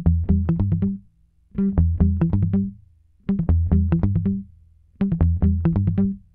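Background music: a short riff of quick notes over a bass line, played four times with brief pauses between.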